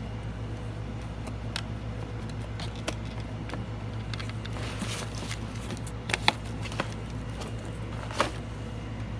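Steady low hum of an air conditioner, with scattered light clicks and taps of crafting supplies being handled. A few sharper clicks come about six seconds in, and one more near the end.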